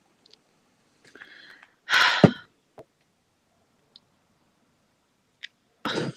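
A person's short, sharp breathy exhale about two seconds in, with a softer breath just before it and another short breath near the end. A few faint clicks fall between them.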